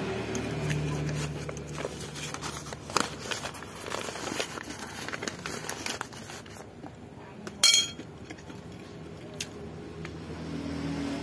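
Packaging being handled: crinkling and rustling with many small clicks, then one sharp clink with a short ring a little under eight seconds in.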